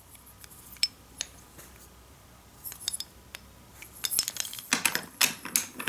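Wooden toy engine and tender with metal wheel axles and magnetic couplings, handled and turned over in the hands: scattered small clicks and knocks, growing busier near the end.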